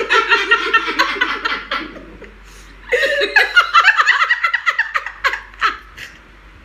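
Two women laughing together in two long fits, with a brief lull between them; the second fades into separate short bursts of laughter near the end.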